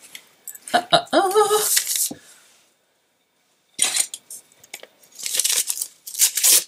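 Paper wrapping rustling, crinkling and tearing in short bursts as a small wrapped box is unwrapped by hand. A brief wavering hum of the voice comes about a second in.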